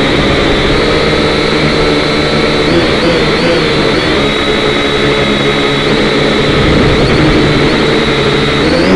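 A small radio-controlled drone's electric motors and propellers whining steadily, heard close up through its own onboard camera as it lifts off and climbs. The pitch wavers about three seconds in and rises briefly near the end as the throttle changes.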